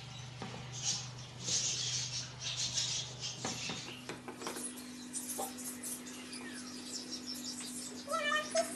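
Wooden spatula stirring and scraping a thick fish-and-onion masala around a non-stick frying pan, in repeated scratchy strokes that are busiest over the first few seconds, over a low steady hum.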